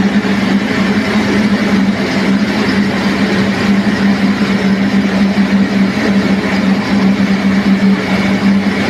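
NG 25D combined rice milling machine running steadily: a constant hum with a dense rushing noise over it, unchanging throughout.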